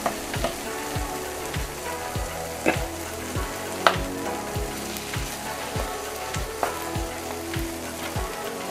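Beaten egg with asparagus and tomato sizzling in a nonstick frying pan as an omelette sets, a wooden spatula pushing through it and knocking sharply on the pan a couple of times. Under it runs a steady beat of low thumps, about two a second.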